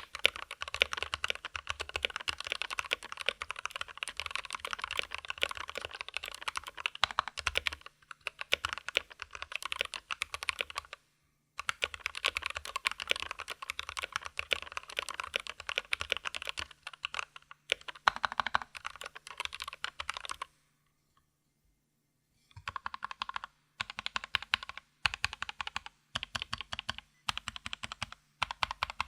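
Fast typing on a Velocifire mechanical keyboard with lubed and filmed Gateron Yellow linear switches, its plastic case lined with neoprene: a dense run of soft keystroke clacks that pauses briefly a few times and stops for about two seconds past the middle.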